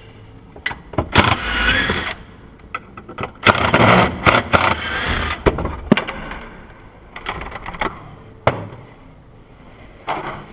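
Door lock and lever-handle hardware being worked by hand: a run of clicks, knocks and scraping, with a short squeal about a second in.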